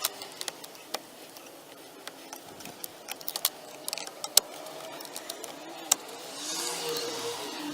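Scattered clicks and knocks of hands working plastic parts and the SRS wiring connector at a car's steering column, with sharper knocks about four and a half and six seconds in. A rushing noise swells near the end.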